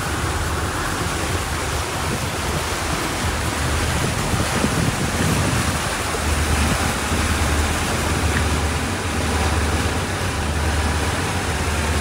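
Wind buffeting the microphone over the rush of water from a catamaran's wake as it motors along: a steady noisy wash with a low rumble that swells and eases.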